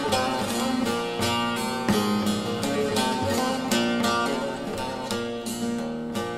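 Bağlama, the Turkish long-necked lute, played solo: a continuous melodic run of picked notes, about three a second, each ringing briefly into the next.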